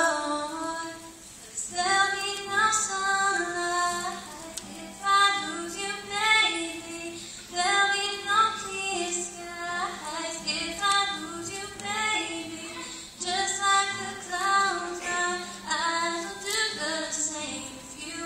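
A teenage girl singing a slow pop ballad solo into a microphone, in long sung phrases with short breaths between. Her acoustic guitar accompaniment is faint beneath the voice.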